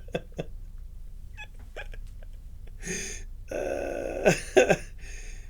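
Wordless excited vocal sounds from a man: a drawn-out exclamation about halfway through, followed by short, quick, laugh-like breaths. A few faint clicks come before them.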